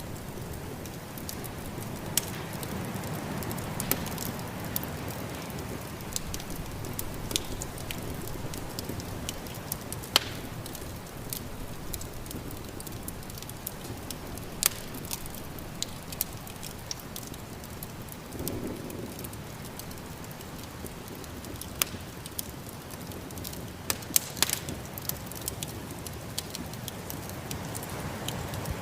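Wood fire crackling, with irregular sharp pops, over a steady low rush of snowstorm wind.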